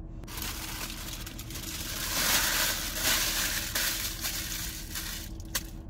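Paper sandwich wrapper being crumpled and balled up by hand, a continuous crinkling that is loudest about two to three and a half seconds in and stops shortly before the end.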